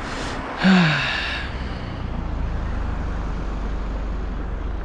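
A car's engine running steadily at idle, a low rumble. Near the start a person lets out a loud sigh whose pitch falls away.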